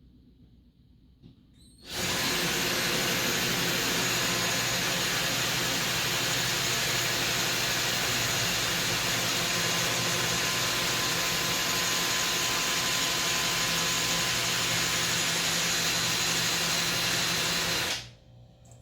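Rechargeable Black & Decker 10 mm drill driver switched on about two seconds in, its motor running at a steady speed, then stopping shortly before the end.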